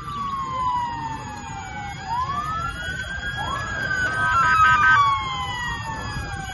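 Several emergency sirens wailing at once, their pitches sliding slowly up and down and overlapping, over a steady low rumble. They are loudest about four to five seconds in.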